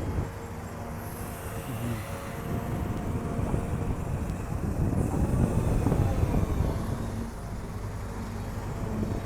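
Hydraulic excavator's diesel engine working under load as it digs, the engine swelling louder through the middle and easing off near the end.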